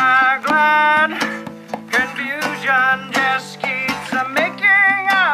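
Live acoustic folk song: a man singing over a strummed acoustic guitar, with hand drumming on a djembe.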